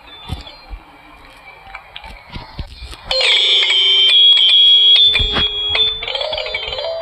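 Electronic phone ringtone: after a few faint clicks and soft tones, a loud buzzy synthetic tone starts about three seconds in and holds for about three seconds, then breaks into short stepping notes near the end.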